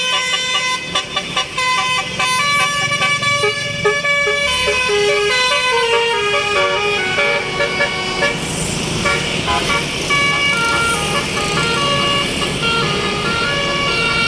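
Tour bus's 'basuri' telolet horn, a set of tuned air horns, playing a quick melody of short stepped notes over engine noise. About eight seconds in, a hissing noise joins underneath the tune.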